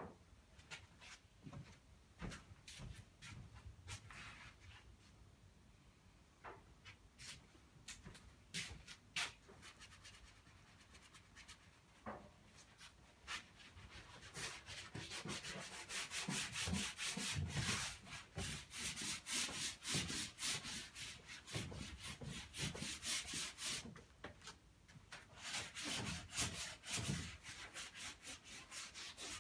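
Oil paint being rubbed and scraped over unstretched canvas by hand and brush. The strokes are scattered at first, then come thick and fast as a scratchy rubbing through the middle, pause briefly, and pick up again near the end.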